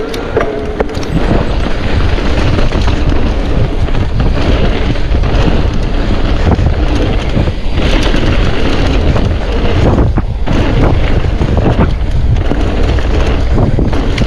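Wind buffeting the microphone over the rumble of mountain bike tyres on a rough trail, with frequent rattles and knocks as the bike runs over bumps.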